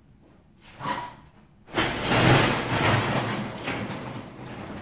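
Motorized overhead garage door opening: a short start-up sound, then the door rumbling and rattling up its tracks, loudest about two seconds in and fading over the next few seconds.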